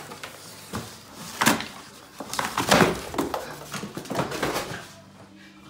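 A dog tearing at and dragging a cardboard box across a hardwood floor: irregular rustling, scraping and knocks of cardboard, loudest about a second and a half in and again near the middle.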